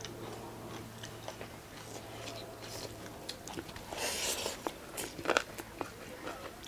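Close mouth sounds of someone eating chicken curry with rice: biting and chewing with many small wet clicks, and a short louder noisy burst about four seconds in.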